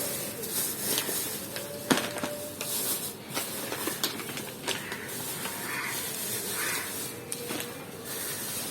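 Plastic chocolate packets being handled and rustled, a crinkling hiss with scattered clicks and taps, one sharper tap about two seconds in.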